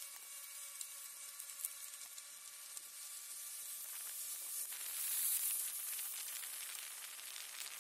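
Steady hiss of road and wind noise from a moving vehicle, with a faint steady whine that drops away a little over halfway through. The hiss then swells louder about five seconds in.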